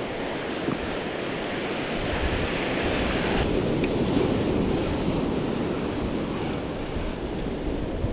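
Sea surf washing up the shingle-and-sand beach. A wave swells louder a few seconds in and then eases, with wind rumbling on the microphone.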